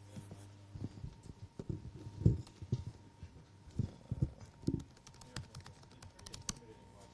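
Laptop being handled and typed on at a lectern: irregular knocks and thumps, the loudest about two seconds in, with scattered key clicks.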